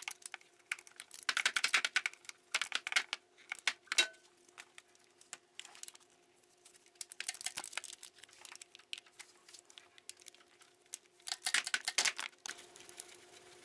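Socket ratchet wrench clicking in three bursts of rapid ticks as the thermostat housing bolts are worked loose, with a faint steady hum underneath.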